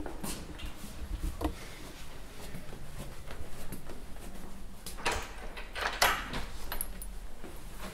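Scattered clicks and knocks at a wooden door, the loudest in two short clusters about five and six seconds in, over a low room rumble.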